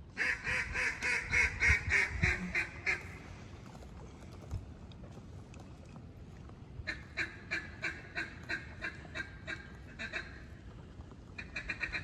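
Mallard duck call blown in fast runs of loud hen quacks, about five a second, three times: hard hail and comeback calling to turn ducks circling overhead and pull them away from live birds.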